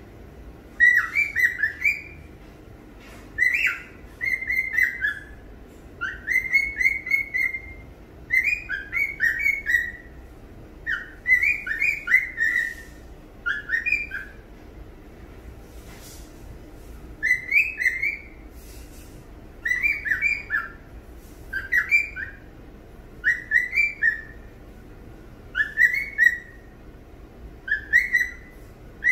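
Male cockatiel singing: about a dozen short whistled phrases of quick rising and falling notes, separated by brief pauses, with a longer pause about halfway through.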